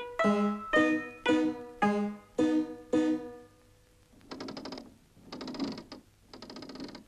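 A mechanical musical instrument plucks a slow run of tinny notes, about two a second, for the first three seconds. Then its works whir and rattle in three short bursts of rapid ticking, like gears turning.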